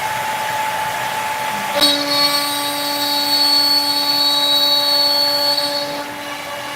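CNC router's spindle running with its dust collection, a steady machine drone; about two seconds in a click is followed by a steadier, higher whine as the bit cuts, which stops about six seconds in.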